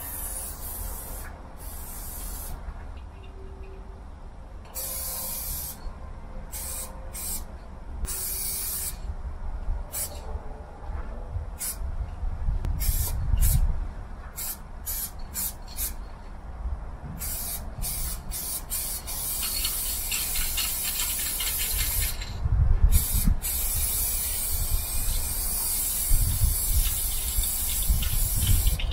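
Aerosol spray-paint can hissing as it sprays, first in many short bursts, then in longer continuous passes during the second half. A low rumble runs underneath.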